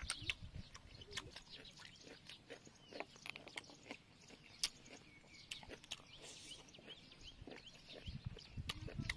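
A person eating cooked snails up close: chewing and wet mouth sounds, heavier at the start and near the end, with many small sharp clicks as the snail shells are handled and picked with a toothpick.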